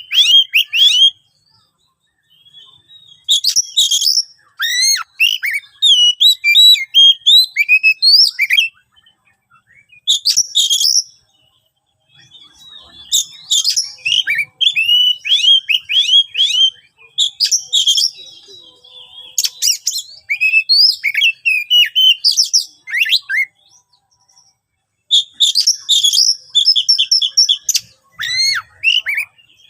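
Oriental magpie-robin singing a loud, rough song of rapid chirps and down-slurred whistles, in bursts of a few seconds with short pauses between. It is the harsh, aggressive kind of song used to provoke rival males.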